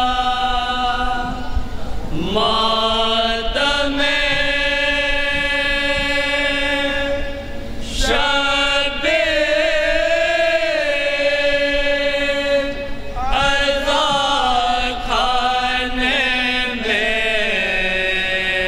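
A man's voice chanting a noha, the Shia lament, into a microphone in long drawn-out held notes that glide slowly between pitches, with a short break about eight seconds in before a new phrase.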